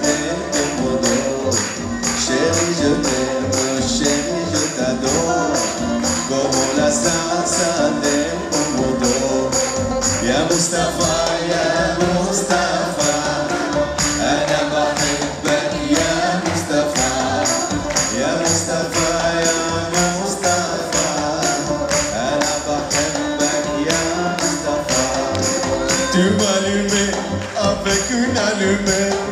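Live band playing an instrumental passage: piano, kamanche, banjo and double bass carrying the melody over a steady percussion beat of about three strokes a second.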